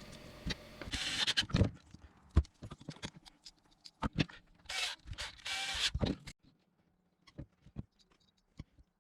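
Plastic spa pump housing parts being handled and fitted together by hand: irregular clicks and knocks, with three short scraping rasps in the first two-thirds, then a few faint ticks.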